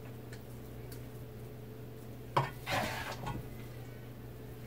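A spoon knocks against a metal pot about halfway through, then scrapes and scoops bread stuffing for about a second, over a steady low hum.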